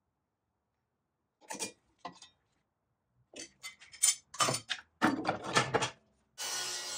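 Metal clinks and clanks of a cleaned table-saw blade and its steel throat plate being handled and set in place on the saw. There are a few separate knocks, then a busy run of clatter over the next few seconds. Near the end a steady, even sound starts.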